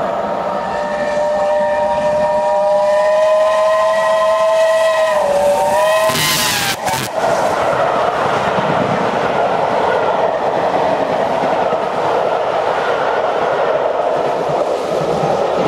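Whistle of BR Standard Class 7 steam locomotive No. 70000 Britannia, held for about five seconds as it approaches at speed, its pitch dropping as the engine passes. A loud rush follows, then the steady rumble and clatter of its coaches running past.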